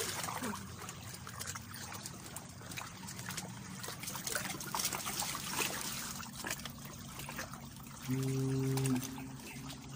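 Shallow seawater sloshing and trickling around rocks close to the microphone, with small splashes throughout. Near the end a steady low tone sounds once for under a second, the loudest thing heard.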